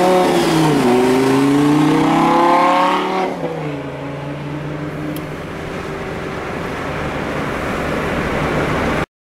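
Lamborghini Gallardo LP 570-4 Spyder Performante's V10 engine accelerating hard, rising in pitch for about three seconds. The pitch then drops sharply and the engine runs on lower and a little quieter as the car pulls away ahead.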